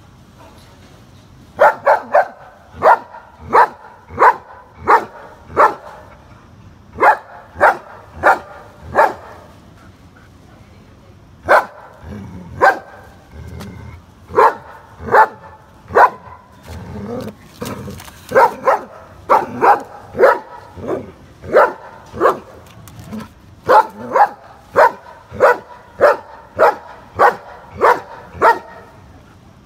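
German shepherd barking in runs of loud, sharp barks, about two a second, with a pause of a couple of seconds near the middle.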